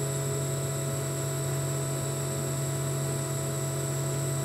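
Hydraulic unit of a COMAC section-bending roll machine running with a steady drone as the rolls turn the tube through a bend.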